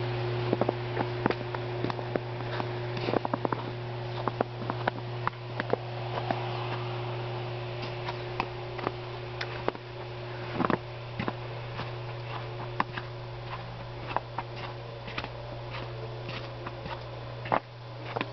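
Footsteps crunching in fresh snow: an irregular run of sharp crunches over a steady low hum.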